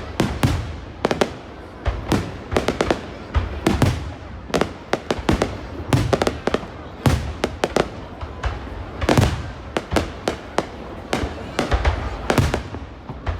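Aerial fireworks bursting in quick, irregular succession: sharp bangs several times a second, many with a deep boom.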